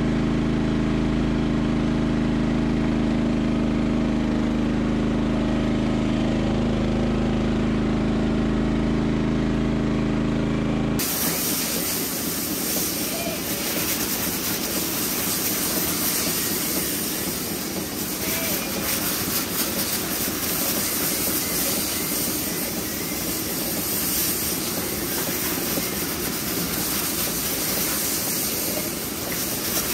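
Tractor engine running steadily at low speed. About a third of the way through it cuts to the steady hiss of a pressure water hose spraying and rinsing milking-machine clusters.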